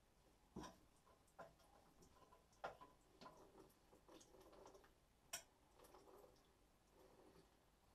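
Faint, scattered clicks and light knocks from hands handling a ceramic washbasin and small parts in a plastic tub, about half a dozen spread over several seconds, the sharpest just past the middle.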